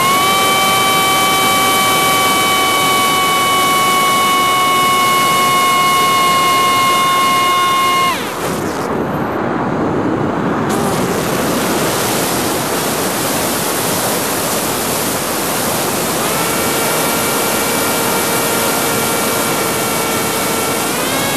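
FPV quadcopter's motors and propellers whining over a heavy rush of air: a steady high whine for about eight seconds, then the whine drops away and only the rushing air is heard for several seconds, before the whine comes back lower and rises again near the end.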